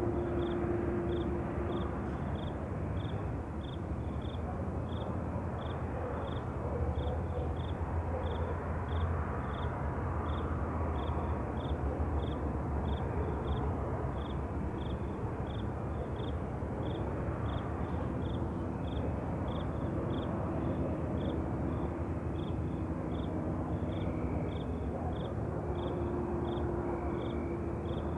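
Night ambience: a cricket chirping in an even rhythm, somewhat under two chirps a second, over a steady low rumble.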